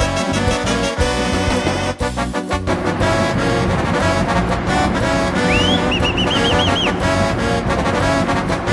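Background music led by brass, with a high note sliding up and then wavering about midway.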